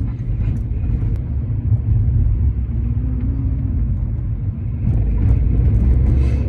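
Car engine and road noise heard from inside the cabin while driving, a steady low rumble that grows louder about five seconds in.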